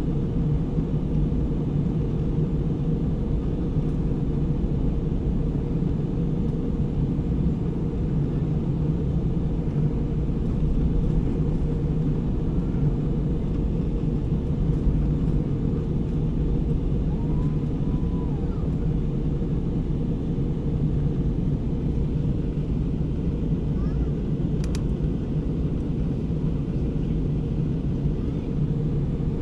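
Steady low rumble of an Airbus A320's passenger cabin in flight: engine and airflow noise.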